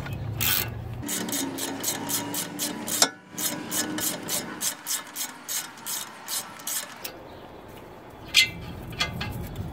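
Socket ratchet clicking in quick, even strokes, about four a second, as a loosened 19 mm caliper-bracket bolt is backed out of the steering knuckle; the clicking stops about seven seconds in.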